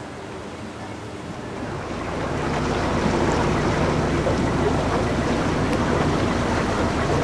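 Narrowboat under way: its engine running under a steady rush of water, growing louder about two seconds in.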